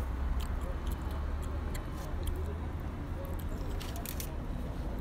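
Handling noise: soft clicks and rustles of kuboos flatbread being wrapped around a meat skewer and worked along it, with a cluster of clicks about four seconds in, over a steady low rumble.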